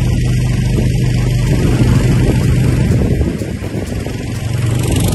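An engine running steadily with a low hum, easing off for about a second past the middle and then picking up again.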